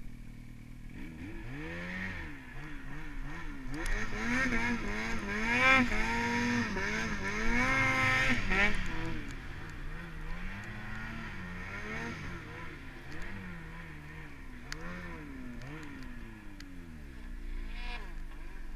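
Snowmobile engine revving up and down repeatedly while the sled ploughs through deep powder, the pitch climbing highest and loudest in the first half, then settling into lower, steadier rises and falls.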